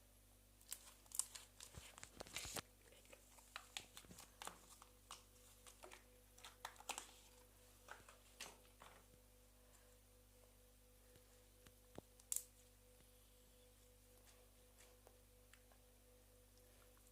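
Slime being squeezed and stretched by hand: a dense run of small crackles and pops for the first half, then a pause and a couple of single pops a little after the middle.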